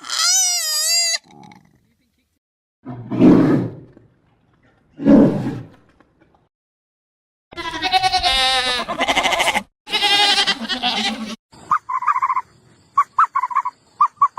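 A run of animal calls. A high call wavering in pitch opens it, then two low, rough calls come about two seconds apart, then a long wavering call that sounds like bleating. Short, quick calls repeat near the end.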